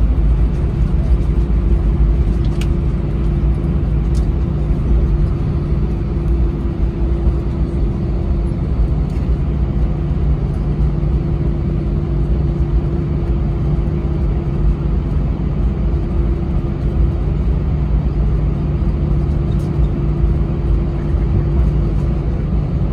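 Inside the cabin of a taxiing Airbus A319: the jet engines running at low power and the wheels rumbling on the taxiway, a steady deep rumble with a constant hum.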